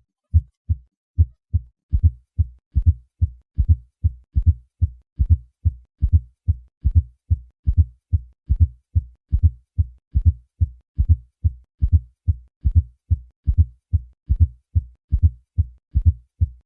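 Heart sounds with a fourth heart sound (S4) added to the first and second heart sounds, giving a steady low-pitched triple rhythm, an atrial gallop. A fourth heart sound is the sign of a stiff, non-compliant ventricle.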